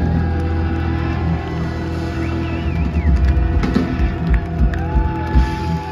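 Live blues-rock band playing at full volume with drums, bass and electric guitar, heard from among the audience. Held guitar tones ring over the band, and heavy low drum hits come in the second half.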